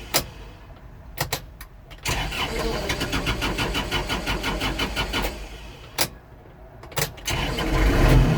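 Kubota L4330HSTC diesel tractor's starter cranking the engine in runs of fast, even pulses, broken by sharp clicks where the starter circuit cuts out and back in. It cranks for about three seconds in the middle, then starts again near the end and grows louder. The cut-outs come from barely touching the HST pedal while cranking, which switches the HST on for a split second.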